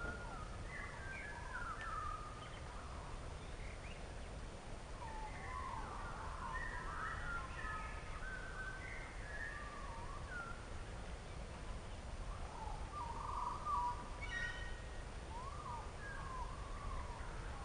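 Wild birds singing and calling: many short, gliding whistles and chirps, with a quick run of repeated notes about two-thirds of the way through, over a steady low outdoor rumble.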